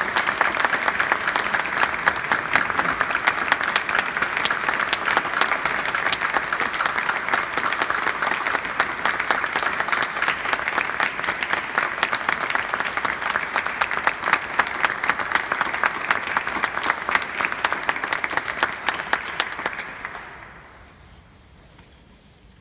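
Audience applauding, dense steady clapping that dies away about twenty seconds in.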